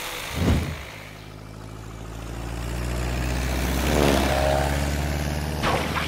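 A machine's motor running with a steady low hum that swells in level, after a single thump about half a second in; a brief rising whine joins around four seconds.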